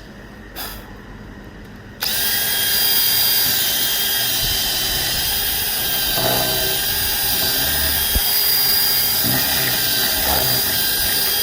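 Power drill boring into wood around a buried nail head that the tree grew over, to free the nail. It stops right at the start, starts again about two seconds in, and then runs with a steady whine, dipping slightly under load a few times.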